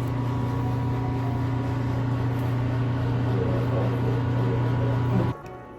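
A steady low mechanical hum with a rumbling noise, cut off suddenly a little after five seconds in.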